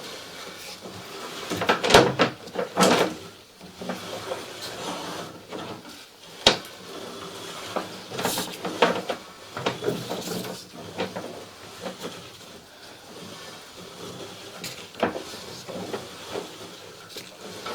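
Irregular knocks, clicks and scraping from a sewer inspection camera's push cable being hand-pulled back through the pipe, with a few sharper knocks about two, three and six seconds in.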